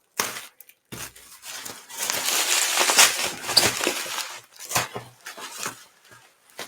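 Packaging crinkling and rustling as it is handled and opened, with a few sharp clicks; the rustling is densest a couple of seconds in.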